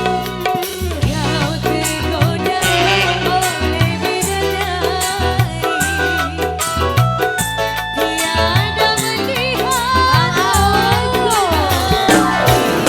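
Band music with a heavy, steady bass line and regular drum beats. A sung or lead melody bends and slides in pitch, strongest in the second half.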